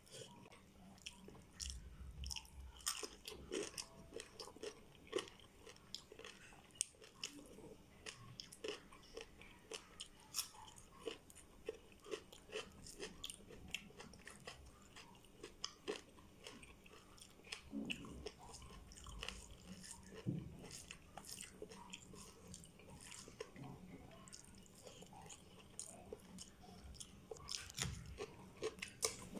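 A person chewing and eating rice and prawn curry by hand, close up: a steady run of small, irregular wet mouth clicks and smacks.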